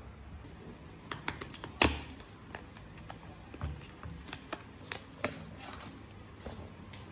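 Hands unwrapping a small item from clear plastic packaging: scattered clicks and crackles of plastic and card, with one sharp louder click a couple of seconds in.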